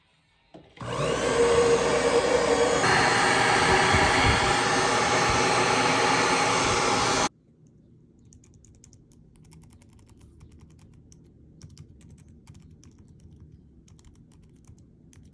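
A loud steady rushing noise starts about a second in and cuts off suddenly after about six seconds. Then come faint, irregular clicks of an Apple Magic Keyboard's keys being typed on.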